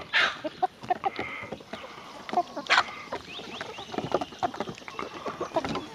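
Chickens pecking grain off a wooden table: quick, irregular taps, with a few soft clucks and chirps among them.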